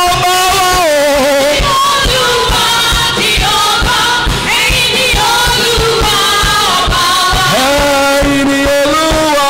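Live gospel praise music: a man leads the singing on a microphone with a women's choir, over electric keyboard and a drum kit keeping a steady beat. The singing moves in long held notes.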